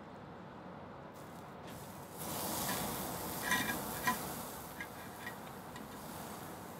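A thin strip of raw beef sizzling as it is laid on the hot wire mesh of a small tabletop grill. The hiss starts about two seconds in and fades over the next few seconds, with two sharp clinks of the metal tongs against the grill about halfway through.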